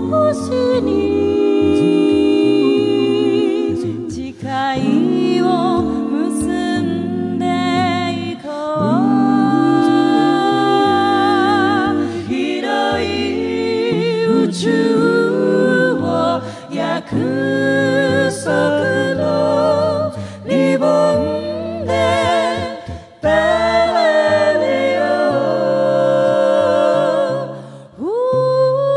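An a cappella group of men's and women's voices singing a slow song in close harmony, with no instruments. A woman's voice carries the melody with vibrato over the other parts and a low bass line, and the group breathes briefly between phrases.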